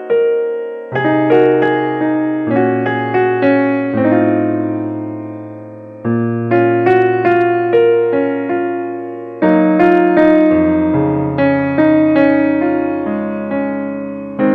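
Background piano music: a gentle melody of struck notes, several a second, each fading away, over lower bass notes that change every few seconds.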